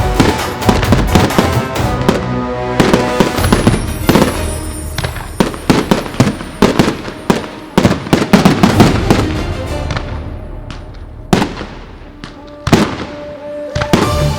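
Fireworks display going off in rapid, overlapping bangs and crackles, thinning to a few separate booms in the last few seconds. Music plays underneath.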